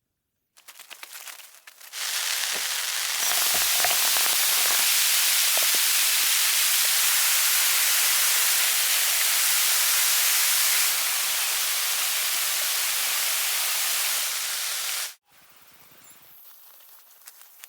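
A loud, even hiss that sets in about two seconds in after a little faint crackling, holds steady, and cuts off abruptly near the end, followed by faint crackling.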